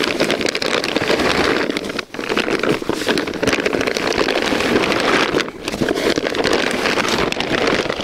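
Cardboard box and plastic wrapping rustling, crinkling and scraping as a plastic-wrapped roll of electric poultry netting is pulled out of its box.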